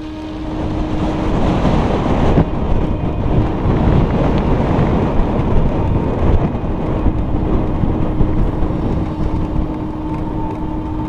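Wind buffeting the microphone of a handlebar-mounted action camera, mixed with tyre noise from a bicycle rolling at speed. The sound changes abruptly about two seconds in, where the ride goes from a gravel road to pavement.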